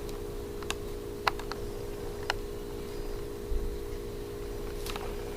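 A handful of sharp little clicks and taps, about five spread across a few seconds, from 45 RPM records in their sleeves and packages being handled, over a steady low hum.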